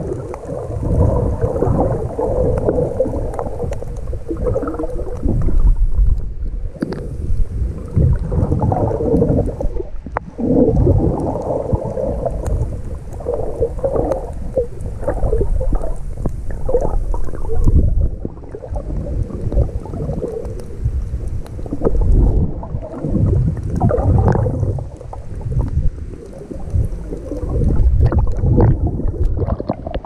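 Muffled underwater rumbling and gurgling of moving seawater, heard through a submerged GoPro 5's microphone, rising and falling in uneven surges.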